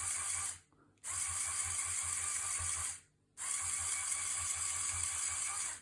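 LEGO L motor turning a long worm gear to extend a fire-truck ladder, a steady gear whir with a fast buzz. It runs in three short bursts with brief stops between them, as the ladder is pushed out bit by bit so as not to over-extend it.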